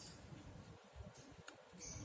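Near silence, with a couple of faint small clicks.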